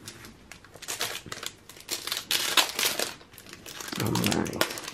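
Foil booster pack crinkling and rustling in the hands as it is picked up and opened, in irregular crackles that are loudest a couple of seconds in.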